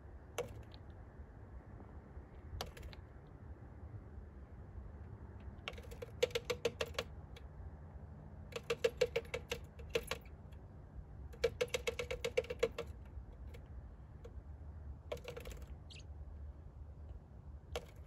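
A small bird's beak tapping rapidly on a pickup's side mirror and window glass, pecking at its own reflection: three quick runs of taps about a second long each, with single taps between.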